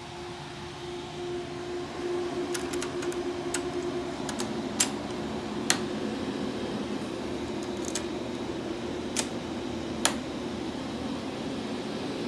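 Cooling fans of a wooden CNC power-supply enclosure running: a steady whirring hum with a held tone, growing louder about two seconds in. A scattering of sharp clicks and knocks sounds over it through the middle and once near the end.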